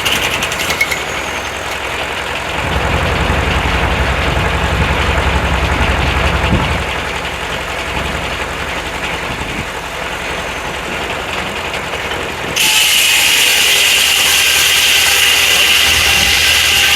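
Corley 395 circular sawmill running under engine power. The engine's low rumble swells from about three to seven seconds in, and about twelve seconds in a loud, steady high-pitched saw whine with hiss starts suddenly, as the blade goes into the log, and holds.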